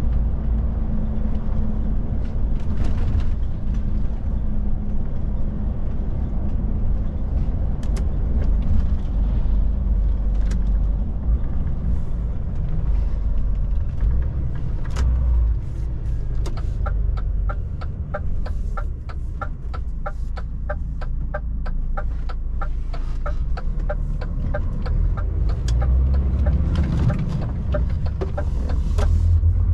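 DAF truck's diesel engine and road noise rumbling steadily inside the cab. From about halfway through, a quick even ticking runs for roughly nine seconds, typical of the turn indicator while the truck turns.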